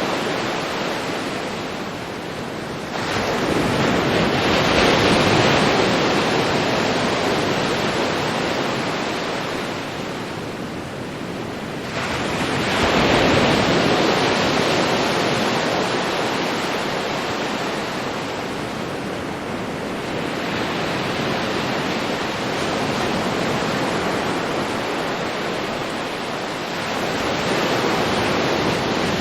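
Ocean waves breaking on a beach: a steady rush of surf that swells and ebbs, surging most strongly as waves break about three seconds and twelve seconds in.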